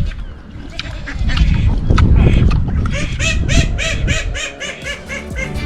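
Farm waterfowl calling in a quick run of repeated honking calls, about five a second, in the second half. Before the calls there is a low rumbling noise, the loudest part.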